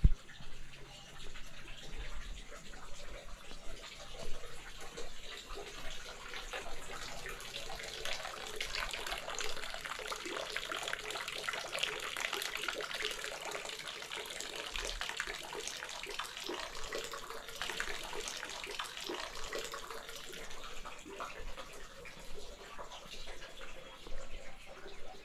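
Running water splashing steadily, growing louder toward the middle and fading again toward the end.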